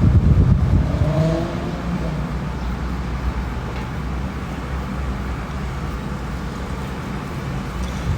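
Steady low rumble of road traffic or a running vehicle.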